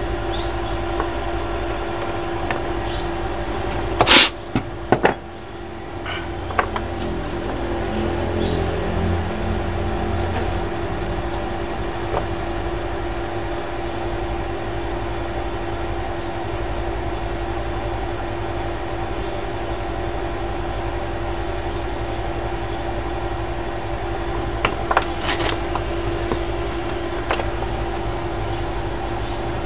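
A steady machine hum with a constant tone. A few sharp clicks and knocks about four and five seconds in and twice more near the end, as a laptop motherboard and metal tweezers are handled on the workbench.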